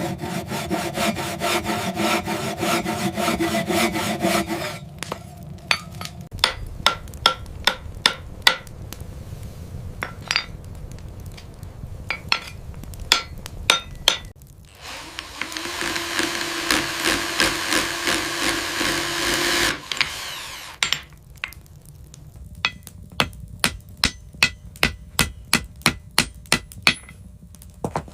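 Hand tool work: a quick run of taps for the first few seconds, then slower single taps, about five seconds of rasping like a file scraping, then steady light taps about two a second.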